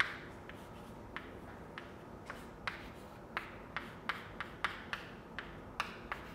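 Chalk tapping and scraping on a blackboard as a formula is written: a faint run of short, sharp clicks, irregular, about two a second.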